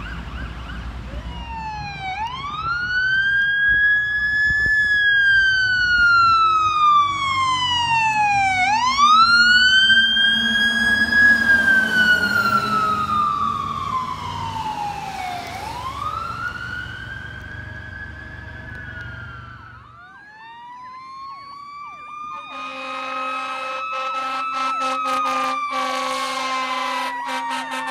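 Fire truck siren wailing in slow rises and falls, about three long cycles, with the truck's engine running low underneath. Near the end, after a cut, another siren winds up and a steady horn blast sounds over it.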